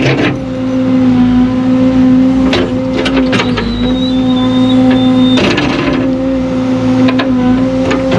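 Construction machine's engine running at a steady speed, with several sharp knocks and clanks around three seconds in and again about five seconds in, and a faint high whine between them.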